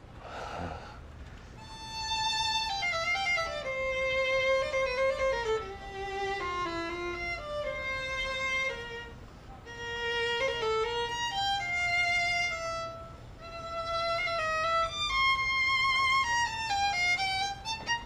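Solo violin playing a slow, lyrical melody with notes sliding into one another, in phrases that break off briefly twice, after a short rustle at the very start.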